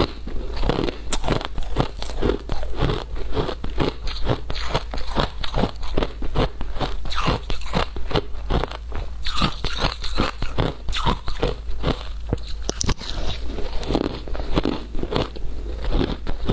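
Frozen shaved ice being bitten and chewed: a steady run of crisp crunches, a few each second.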